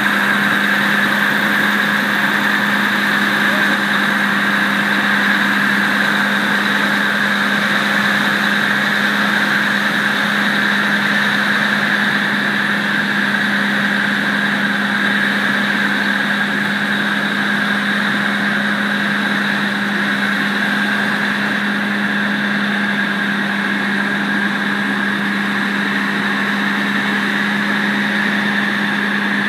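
Volkan aerial fire truck's engine running steadily while its aerial ladder is being worked, with a steady whine above the engine note.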